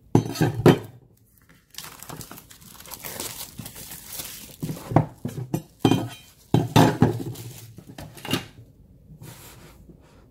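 Handling sounds of opening a phone box: a large knife clacking against the box and tabletop, and the paper sleeve rustling and tearing as it is stripped off. Several sharp knocks come about a second apart near the middle as the knife and box are set down on the table.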